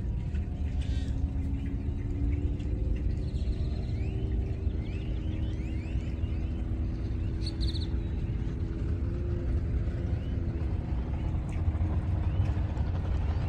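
Steady low outdoor rumble with a faint engine-like hum under it, and a few short rising bird chirps around the middle.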